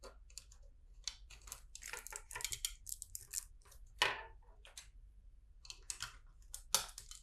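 Plastic LEGO bricks being handled and fitted together: a busy run of short clicks and rustles, with louder clicks about four seconds in and again near the end.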